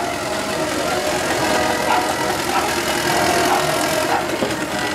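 Engine of a miniature steam wagon running steadily as it drives past.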